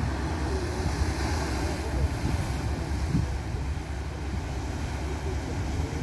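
Wind rumbling on the microphone over the wash of sea surf breaking on rocks.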